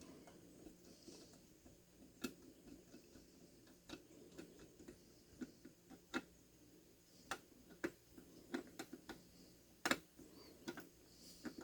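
Faint, irregular small clicks and taps, about a dozen spread unevenly: a small steel multi-tool and an outlet's plastic cover plate and screws being handled while the outlet is refitted.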